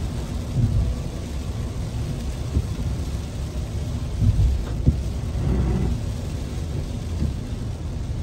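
Low rumble of tyre and road noise inside a car's cabin on a rain-soaked highway, with rain hitting the car. A few louder bumps come about a second in and again between four and five seconds in.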